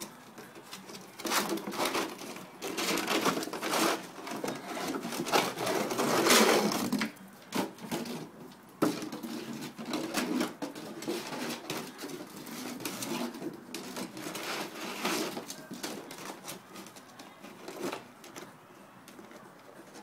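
An empty plastic milk jug being dragged, chewed and knocked about on concrete paving by terrier puppies: irregular scraping and hollow clattering, busiest and loudest in the first seven seconds, then sparser knocks.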